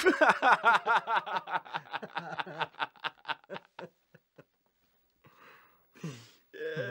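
A man laughing hard: a fast run of pitched 'ha' pulses for about four seconds, trailing off, then a few breathy gasps and a short voiced sound near the end as he catches his breath.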